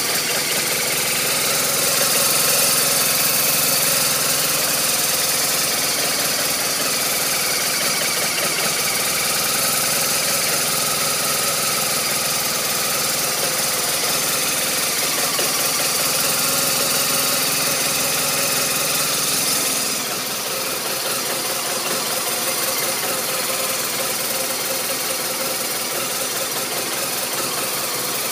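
BMW R1200RT's flat-twin boxer engine idling rough, a steady running note with a slight drop in level about twenty seconds in.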